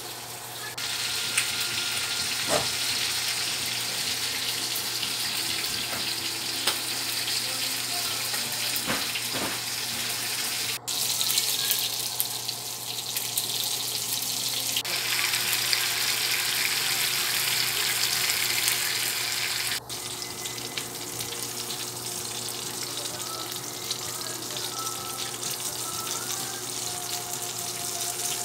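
A steady hiss with fine crackling, broken off abruptly twice, about eleven and twenty seconds in. After the second break it is fish frying in hot oil in a pan, a softer sizzle.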